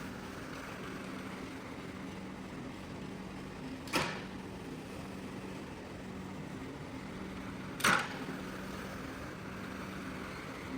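A machine runs with a steady low hum and hiss. It is broken twice by a sharp click, about four seconds in and again near eight seconds.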